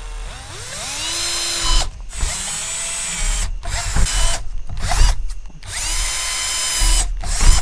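Power drill boring holes in the corners of a square cut-out in a plastic panel. It starts and stops about four times, and each run winds up to a steady whine before cutting off.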